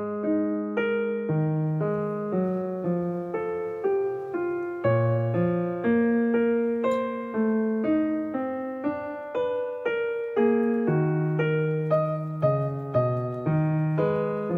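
Background piano music: a gentle melody with chords, a new note roughly every half second.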